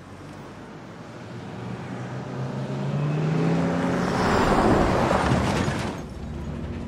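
City bus approaching and passing close by. Its motor note rises as the noise swells to its loudest about four to five seconds in, then falls away.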